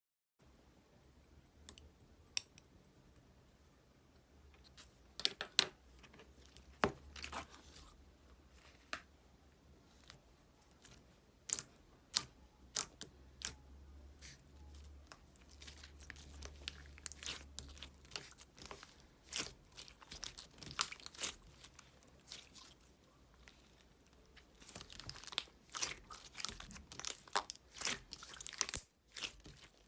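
Close-up crunching, crackling and tearing of a chewy, sticky material, in irregular clicks that come thick and fast near the end.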